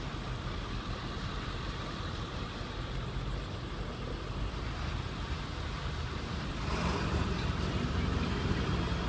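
Engine running steadily with a low rumble, getting louder about seven seconds in.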